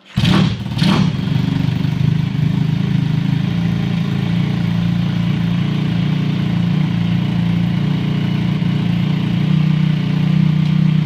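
A Honda Z50R minibike's swapped-in 140cc engine firing up on its first start, with two quick revs in the first second, then settling into a steady idle.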